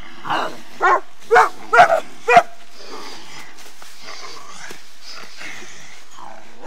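Teenage girls barking and yelping in imitation of wolves while they wrestle: about six short, loud bark-like calls in quick succession over the first two and a half seconds, then only a low, steady background hiss.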